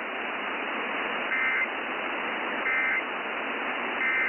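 Three short Emergency Alert System end-of-message data bursts, each a fraction of a second long and about 1.4 s apart, over steady radio static hiss. They are the buzzy digital tones that close a weather-radio warning broadcast.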